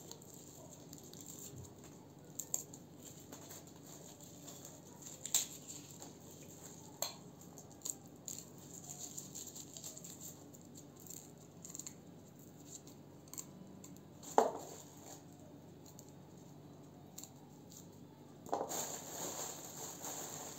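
Garlic cloves being peeled with a kitchen knife: scattered small clicks and scrapes of the blade on the cloves and their papery skins, with one sharper click about fourteen seconds in. A louder rustling starts near the end.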